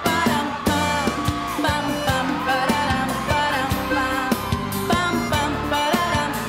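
A woman singing a pop song over a full band with a steady beat.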